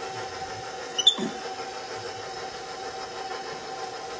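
Electric stand mixer running steadily with a constant motor whine as it beats butter, powdered sugar, egg and vanilla into cookie dough. A short high squeak sounds about a second in.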